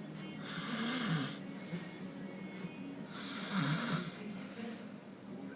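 A man snoring heavily in deep sleep: two long, rough snores about two and a half seconds apart. Each has a harsh rasp over a low drone that dips and rises in pitch.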